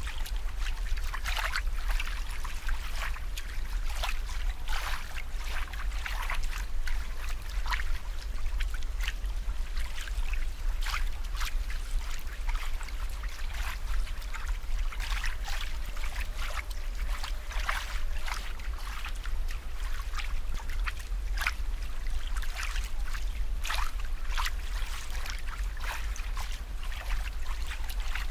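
Water trickling and bubbling in a steady run of irregular small splashes and pops, over a constant low hum.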